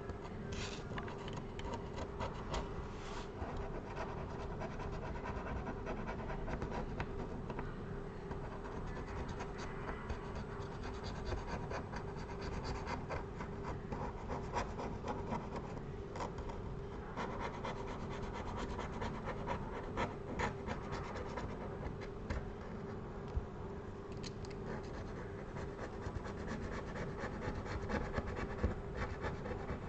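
A hand tool scraping and scratching along the iPad Air's frame in many short strokes with small clicks, clearing old screen adhesive, over a steady low hum.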